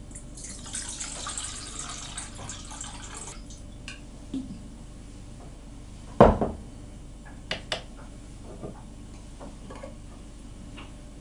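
Water poured from a glass bottle into a stainless steel bowl on a kitchen scale, a steady splashing pour for about three seconds. About six seconds in there is a sharp knock, followed by a couple of lighter clicks.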